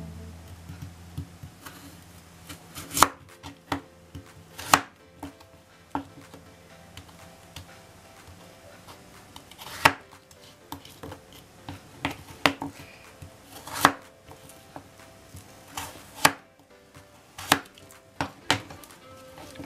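Kitchen knife cutting peeled taro (satoimo) into chunks on a cutting board: sharp, irregular knocks of the blade reaching the board, with pauses of a second or more between cuts.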